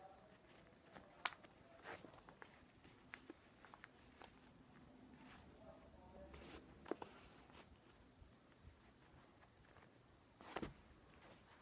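Near silence in a small room: faint rustling and a few light clicks, with a short, louder rustle near the end.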